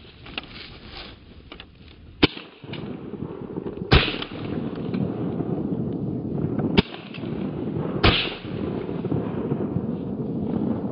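Four shotgun shots, in two pairs: two about a second and a half apart, then, after a gap of about three seconds, two more about a second apart.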